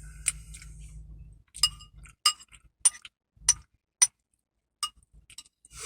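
A metal utensil clinking against a dish, about seven sharp ringing taps spaced roughly half a second to a second apart, as meat in the food is chopped up.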